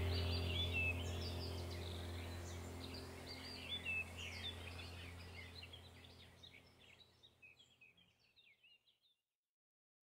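Small birds chirping and twittering over a low steady hum, the whole track fading out to silence about seven seconds in.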